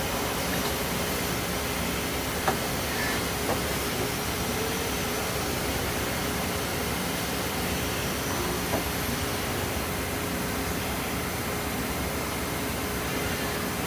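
Miyano BND-51S2 CNC lathe running through a cycle: a steady machine hum and hiss with a faint steady tone, and a few short sharp clicks, two close together a few seconds in and one more later.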